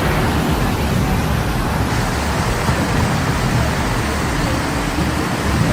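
Strong storm wind blowing across the microphone: a loud, steady rushing noise with an unsteady low rumble of buffeting underneath.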